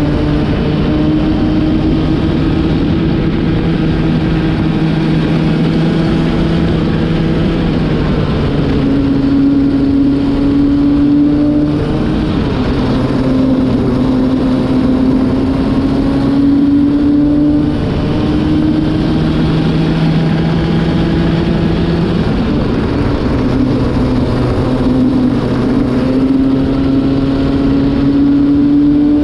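Racing kart engine at speed, heard onboard from the kart: its pitch climbs steadily along the straights and drops sharply about every four to five seconds as the driver lifts for corners, with wind and road noise throughout. The engine is new and being run in.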